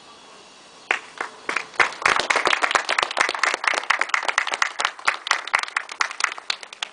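A small group of people applauding by hand: a few scattered claps about a second in, quickly building into steady, dense clapping that thins out near the end.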